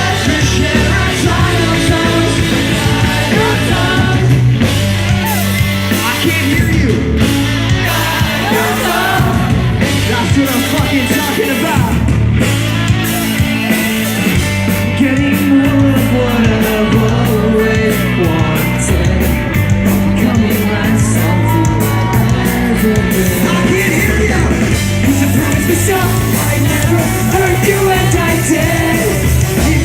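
Pop-punk band playing a song live, with a singer's vocals over the full band.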